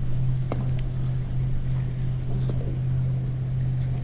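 Boat engine idling with a steady low drone, with a few faint ticks over it.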